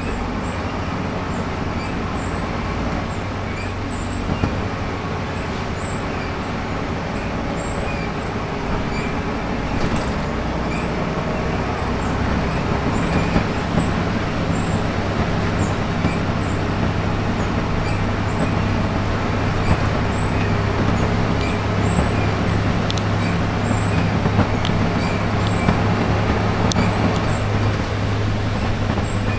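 Interior sound of a Volvo B7RLE bus under way: its six-cylinder diesel runs with a steady low hum, and small rattles come from the saloon. The engine note grows louder about ten seconds in, as the bus works harder.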